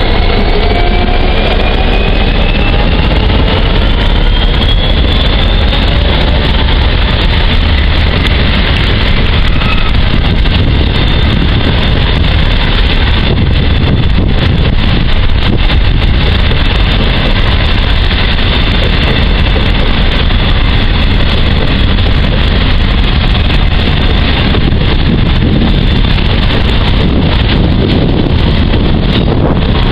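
A Class 66 diesel freight locomotive, with its two-stroke EMD V12, passing close by at the head of a train of hopper wagons. Its rising whine fades over the first few seconds, giving way to the steady rumble of the wagons rolling past on the rails, with wind buffeting the microphone.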